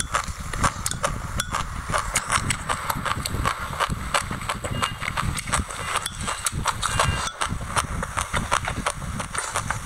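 Close-miked chewing of a mouthful of raw white sesame seeds: a dense, irregular crackle of small crunching clicks. The metal spoon scrapes and taps against the glass mug as she scoops.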